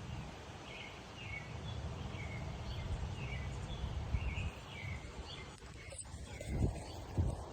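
Birds chirping in short repeated calls over a steady low outdoor rumble, with two dull thumps near the end.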